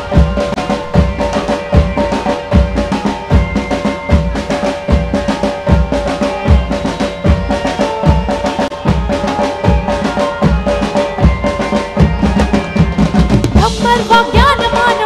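Live band playing Navratri dance music: a steady, fast drum beat under a held keyboard chord. A wavering melody line comes in near the end.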